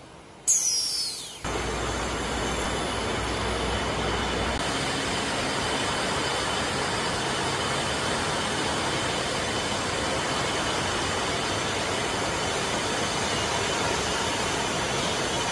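Beer canning line machinery running: a dense, steady din from the conveyors and can-handling machines, which comes in suddenly about a second and a half in. Just before it there is a short, sharp hiss that falls in pitch.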